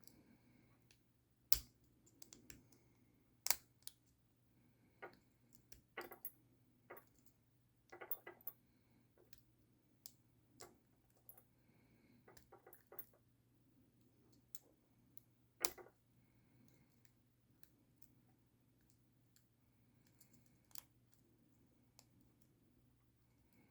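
Scattered sharp metallic clicks and ticks from a hook pick and tension tool working the pin stack of a Brinks Promax 662 four-pin padlock, in irregular clusters with a few louder clicks. The pins are resisting and the lock has not yet opened.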